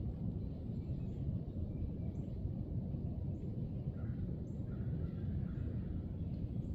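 Steady low outdoor rumble, with faint distant crows cawing a few times around the middle and a faint high tick about once a second.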